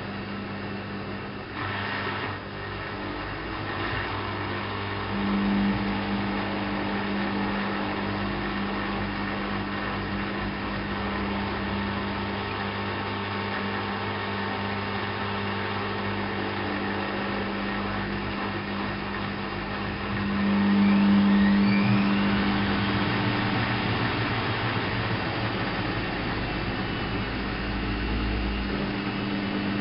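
Alaska WA8200 E washing machine running: a steady motor hum and whir, getting louder about five seconds in and again about twenty seconds in, where a faint rising whine sweeps up in pitch.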